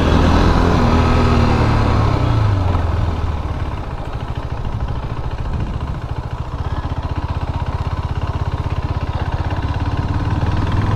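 KTM RC 390's single-cylinder engine idling with a steady low pulse; it is a little louder for the first three seconds, then settles.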